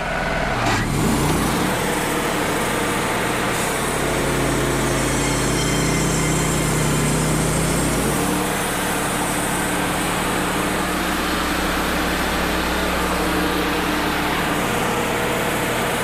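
Wood-Mizer LT35 portable band sawmill running, its engine under load as the band blade cuts lengthwise through a log, taking a leveling cut off the top. The engine note shifts about halfway through.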